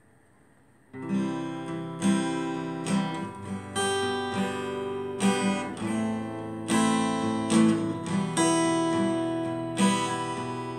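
Acoustic guitar strumming chords as the instrumental intro to a song, starting about a second in after faint hiss.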